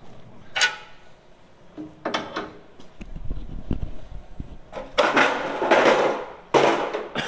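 A large sheet of Durabar steel checker plate being lifted and carried by hand. It gives a few separate knocks and clanks, then longer stretches of scraping and rattling metal noise from about five seconds in.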